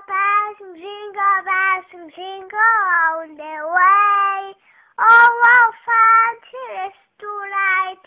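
A young child singing alone without accompaniment, a high voice in short melodic phrases with brief pauses between them.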